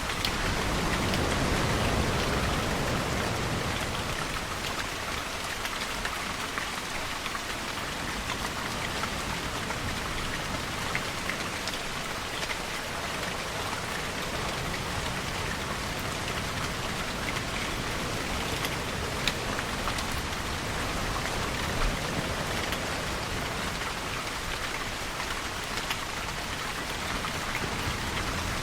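Steady heavy rainfall with close, distinct drops ticking on a surface. A low rumble swells and eases in the first few seconds.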